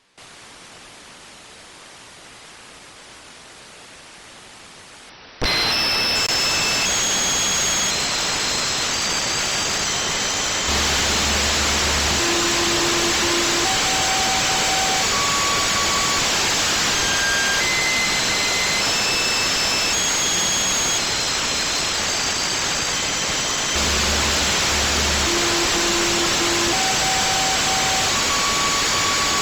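Radio receiver audio from the 146.328 MHz signal: a quiet hiss that jumps suddenly to loud static about five seconds in. Short steady beeps at scattered, changing pitches run through the static, from low hums to high whistles, in a sequence that repeats about every 13 seconds.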